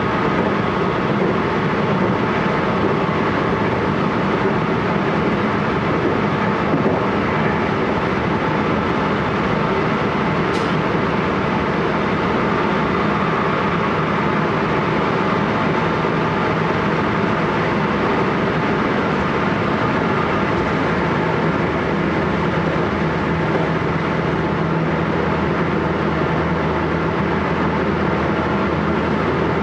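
Steady running noise inside a JR West 223 series 1000 electric multiple unit's motor car, from wheels on rail and traction equipment on the move. The car is a rare second-batch unit with Hitachi VVVF drive.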